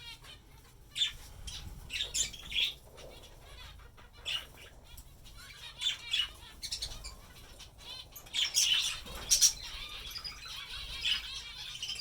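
Caged budgies and zebra finches chirping and chattering, with wing flutters; a louder flurry of calls and flapping comes about nine seconds in.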